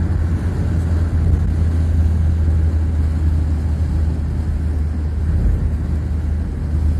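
Car driving along a road, heard from inside the cabin: a steady low drone of engine and tyre noise.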